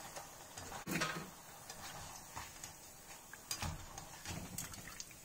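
Tempeh deep-frying in a wok, a faint sizzle of the oil, with several light clinks and taps of a wire spider strainer against the wok and a metal steamer basket as the pieces are lifted out.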